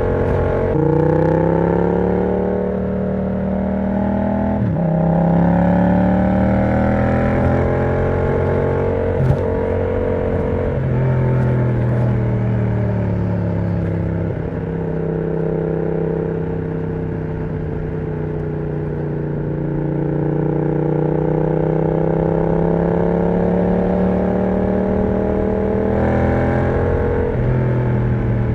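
Yamaha MT-07's parallel-twin engine through an aftermarket exhaust with the dB killer removed. The engine note climbs and drops back at several gear changes, then dips slowly and rises again.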